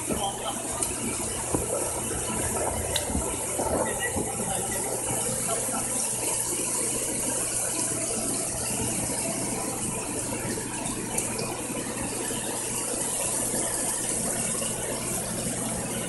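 Flash-flood water rushing down a street in a steady, unbroken noise with a faint low hum underneath.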